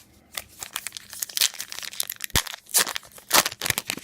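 A trading card pack's wrapper being torn open and crinkled by hand, a run of irregular crackling and tearing.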